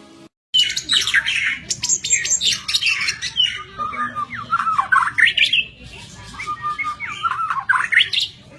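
White-rumped shama singing a fast, varied song of whistled notes, sweeping glides and harsh chattering phrases, with a short lull about six seconds in.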